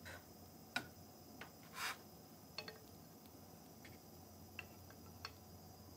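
Faint, scattered light ticks of chopsticks against a stone-coated frying pan and a plate as cherry tomatoes are picked out, with one short scrape about two seconds in.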